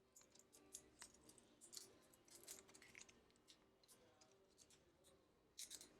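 Faint, irregular clicks and light scratchy ticks of small phone parts and tools being handled on a workbench, with a brief louder cluster of clicks near the end.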